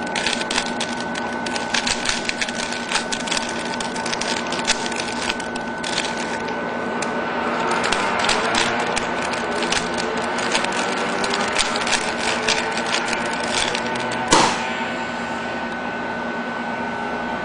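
Rapid plastic clicking and clacking of a mirror cube (bump cube) being turned by hand in a speed-solve, over a steady hum. Near the end, a single louder knock as the solved cube is set down on the table.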